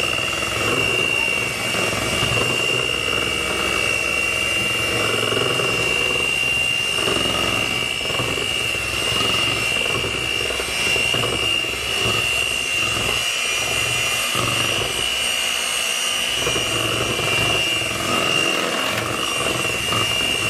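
Electric mixer running steadily with a high motor whine, beating cream cheese frosting as icing sugar is worked in.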